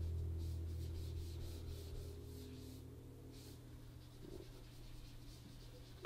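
Gloved hand rubbing oil paint back and forth on matte photo paper, a faint scratchy stroke repeating several times a second, over background music that fades out.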